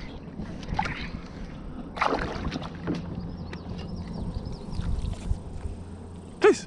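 Water sloshing around a plastic kayak while a hooked fish is reeled in on a spinning rod, with light handling knocks and a run of faint quick ticks from the tackle. A short, loud vocal exclamation comes near the end.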